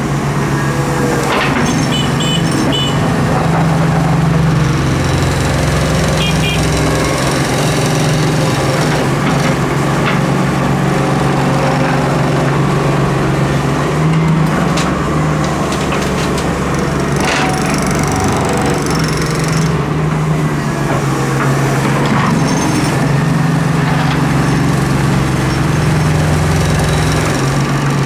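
Diesel engine of a Doosan Solar130W-V wheeled excavator running steadily under load while it swings, dumps and digs sand, with occasional knocks and clanks of the bucket.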